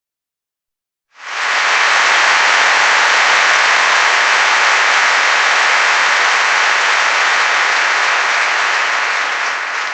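Crowd applause sound effect: dense, steady clapping that starts suddenly about a second in and begins to die away at the very end.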